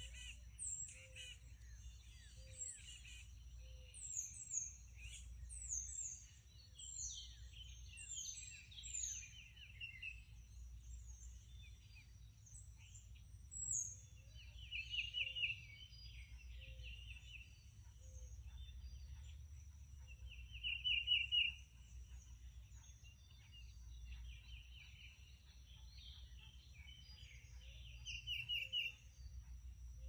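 Several songbirds singing together in a morning chorus: quick falling chirps and a loud rapid trill that comes back every several seconds. Under them run a steady high whine and a low rumble.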